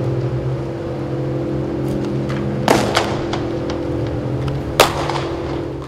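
Two sharp cracks of a baseball being struck and caught, about two seconds apart, over a steady low machine hum from the dome's fans. The sound cuts off abruptly near the end.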